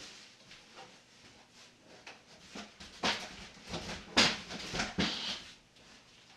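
Cardboard packaging being handled and pulled about: scattered knocks, scrapes and rustles, a few louder knocks between about three and five seconds in.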